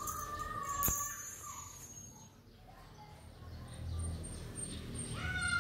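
Kitten mewing: one long, high mew at the start and another beginning near the end, with a sharp click about a second in.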